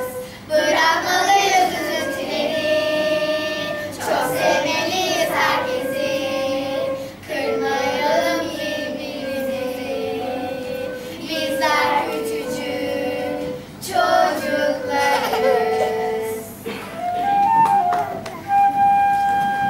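Children singing a song with a flute playing along. Near the end the singing stops and the flute carries on alone.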